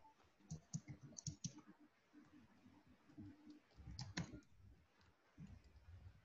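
Faint clicking at a computer over near silence: a quick run of light clicks about half a second in and one sharper click about four seconds in.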